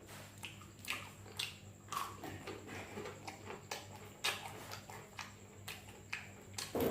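A person chewing food with irregular mouth clicks and smacks, several a second, over a low steady hum.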